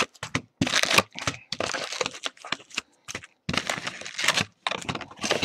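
Foil trading-card pack wrappers crinkling and rustling against the cardboard box as packs are lifted out and handled, in irregular bursts with short pauses.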